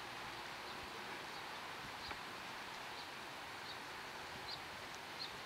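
Steady outdoor background hiss, with a faint short high chirp repeating about every three-quarters of a second.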